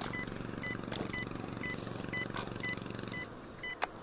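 A steady low mechanical hum that cuts off about three seconds in, under a faint short electronic beep repeating about twice a second, with a few sharp clicks.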